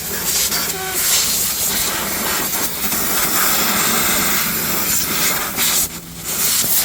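Compressed-air blow gun hissing in long blasts as it blows caked dust out of a dirty portable generator. The air cuts out for a moment just before six seconds in, then starts again.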